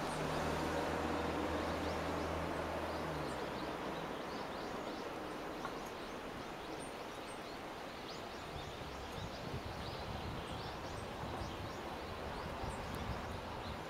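Steady rushing of Nachi Falls, a single tall waterfall, falling water heard as an even wash of noise. A low steady hum underneath stops about three seconds in, and short high chirps are scattered through it.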